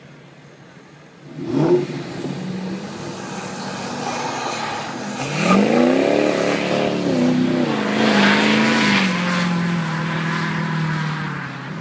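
A Ford F-250 diesel pickup and a Mustang launching from a drag strip start line: a sudden loud rev about a second and a half in, then the engines climbing in pitch as they accelerate hard away from about five seconds in, with the truck burning its tires.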